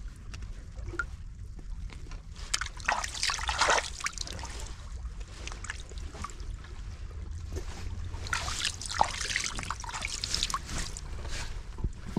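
Shallow seawater in a rocky pool splashing and trickling as a hand works in it. The splashing comes in two bouts, about three seconds in and again about eight seconds in, over a low steady rumble.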